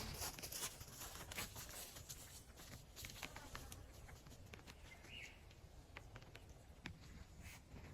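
Faint rainforest ambience: scattered light taps of dripping rain water, with one short bird chirp about five seconds in.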